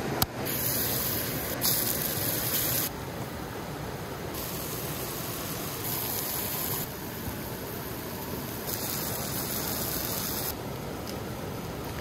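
Beef patties sizzling on a hot stone over a campfire: a steady frying hiss that turns brighter and drops back several times. There is a short knock just after the start.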